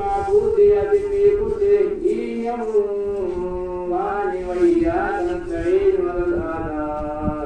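A man's voice chanting a slow, melodic religious recitation in long, drawn-out notes whose pitch glides up and down, continuing without a break.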